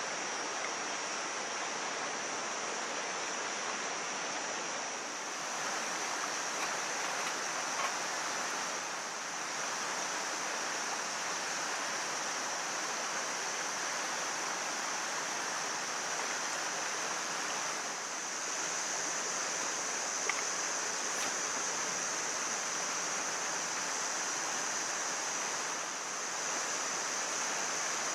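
Mountain stream rushing steadily. A thin, steady high-pitched tone runs over the water noise, louder in the second half.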